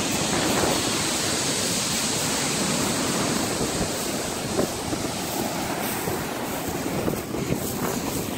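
Surf breaking and washing up over a beach of small rounded pebbles, a steady rush of sea noise, with wind buffeting the microphone.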